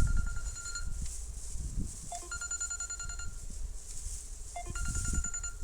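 Phone ringtone ringing: a short electronic melody that repeats three times, about every two and a half seconds, over a steady low rumble.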